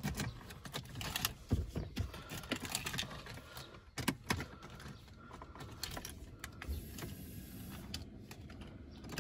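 Mercedes 190E Cosworth 16-valve four-cylinder engine idling, with irregular ticking from a tappy top end: the valve clearances were set on the loosest side after the rebuild.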